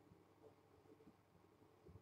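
Near silence: quiet room tone with a few faint soft low knocks, the clearest near the end.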